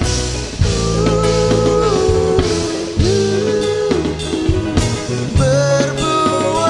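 Band music: a held melody line that slides from note to note over steady bass, drums and guitar.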